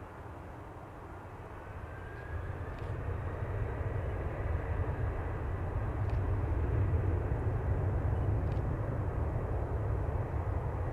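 Jet engines of a Boeing 767-300ER airliner running, a low rumble that grows louder over the first few seconds and then holds steady, with a faint rising whine near the start.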